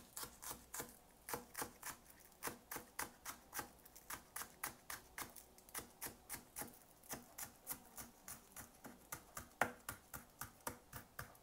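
Kitchen knife slicing green onions very thinly on a plastic cutting board: a steady run of light knocks, about four a second, with a couple of louder knocks near the end.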